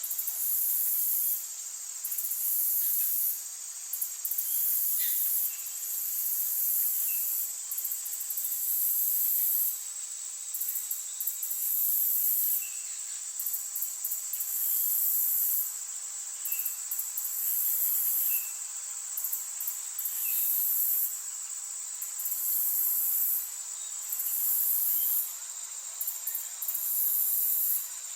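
Insects singing a very high-pitched buzzing trill in pulses of one to two seconds with short breaks between, over a steady high drone. A few faint, short bird chirps sound now and then.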